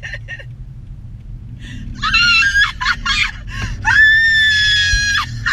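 A woman screaming in fright inside a moving car. A short, wavering scream comes about two seconds in, then a long high scream held for over a second near the end. A steady low rumble from the car's engine and road noise sits underneath.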